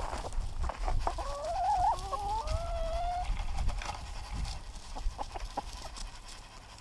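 Chickens calling: several overlapping drawn-out, wavering calls starting about a second in and lasting roughly two seconds.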